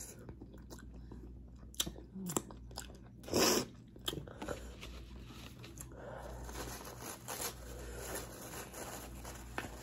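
Close-up chewing of a mouthful of seafood boil, with wet mouth clicks and smacks and a louder noisy burst about three and a half seconds in.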